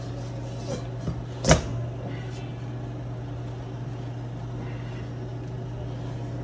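A stainless steel mixing bowl knocks once, sharply and loudly, on a glass cooktop about a second and a half in, after a couple of lighter clicks, followed by paper towels being pushed into the bowl. A steady low hum runs underneath.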